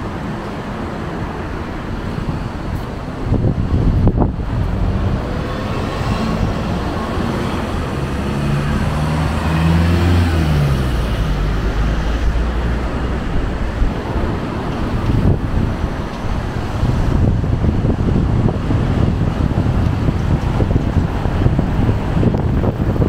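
Road traffic passing close by, a steady rumble of engines and tyres, with one engine rising and falling in pitch around nine seconds in; wind buffets the microphone.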